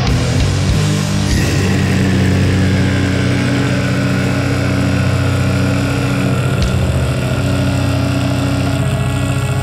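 Doom music: a heavily distorted low guitar drone held steady and loud.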